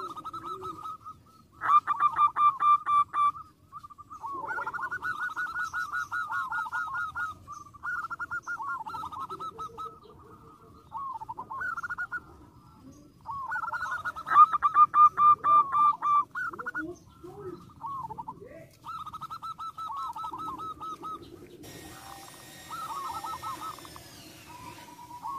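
Zebra dove (perkutut) song: repeated phrases of rapid, pulsed cooing, the loudest about two seconds in and again about fourteen seconds in. A burst of hiss comes in near the end.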